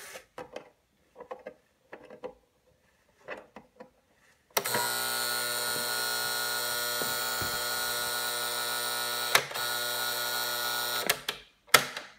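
Alarm buzzer of a 1959 Westinghouse clock radio sounding: a loud, harsh, steady buzz that starts suddenly about four and a half seconds in, with a sharp click partway through, and is switched off about a second before the end, followed by one short burst of buzz. Light clicks and faint taps come before it.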